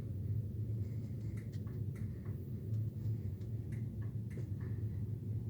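A vehicle's low, steady rumble with a repeated thump pulsing through it, and scattered light ticks over the top.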